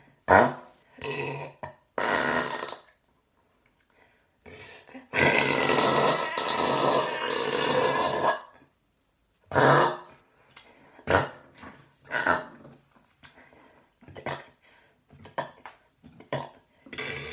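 A woman belching loudly over and over: short burps near the start, one long burp of about three seconds in the middle, then several shorter burps.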